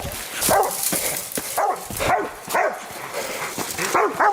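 Pig-hunting dogs barking in a run of short, sharp barks, about two a second.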